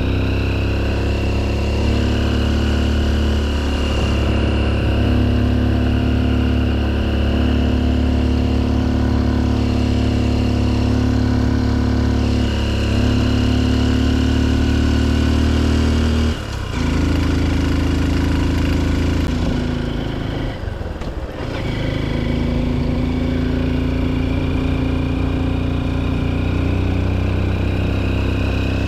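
Honda XR150L's single-cylinder four-stroke engine running steadily under way, its note stepping slightly in pitch. The engine sound drops briefly a little past halfway and dips again a few seconds later, like easing off the throttle.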